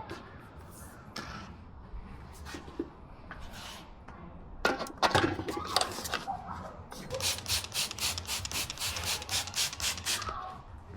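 Rapid back-and-forth rubbing strokes by hand, starting about five seconds in and settling into an even rhythm of about five strokes a second.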